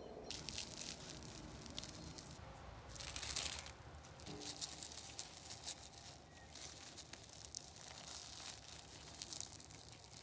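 Faint crackling and soft tearing of a fried potato croquette's breadcrumb crust as gloved fingers handle it and pull it apart, with the densest crackle about three seconds in.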